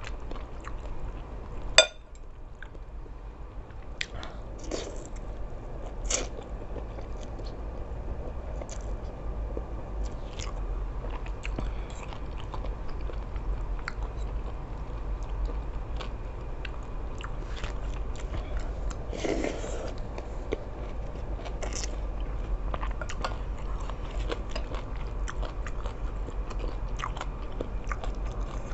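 A person chewing and eating seafood sukiyaki close to the microphone, with scattered small clicks and a sharp click about two seconds in, over a steady low hum.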